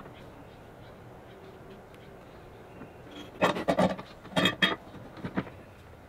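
A long metal bar clamp being set across a plywood box and its screw handle turned to tighten it. About halfway through come a few short clusters of rattling, scraping clatter.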